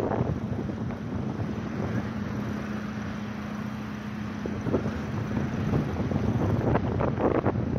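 Aquila A211GX light aircraft's Rotax 912 four-cylinder engine and propeller running steadily at low taxiing power, a constant hum. Wind gusts rumble over the microphone, strongest near the end.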